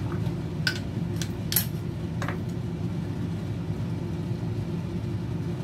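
Steady low mechanical hum, with a few light clicks and taps in the first two and a half seconds.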